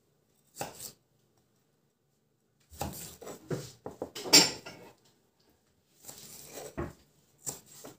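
Kitchen knife slicing cabbage leaves on a wooden cutting board, the blade knocking on the board: one cut near the start, a quick run of cuts in the middle, the loudest about four and a half seconds in, and a few more near the end.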